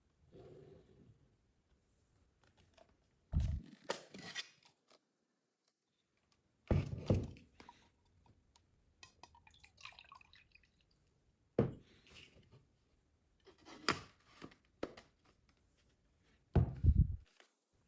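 Handling sounds of a small plastic mini spray fan: a series of short knocks and clicks, some with a dull thump, a few seconds apart, with faint rustling in between.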